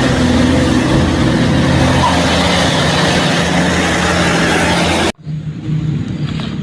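Loud motor-vehicle engine noise: a steady low hum under heavy hiss that cuts off abruptly about five seconds in, leaving a quieter engine hum.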